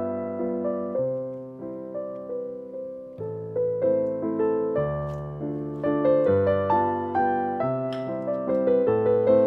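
Background piano music: a run of notes, each struck and dying away.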